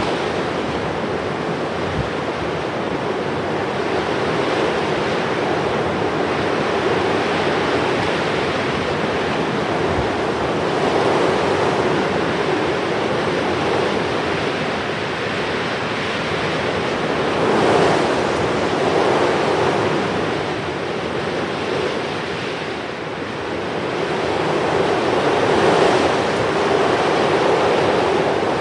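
Surf: a steady rushing wash of waves, swelling louder twice in the second half.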